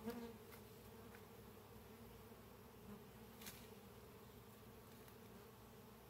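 Faint, steady hum of Russian honey bees swarming over a lifted brood frame at an open hive, with one light tick about three and a half seconds in.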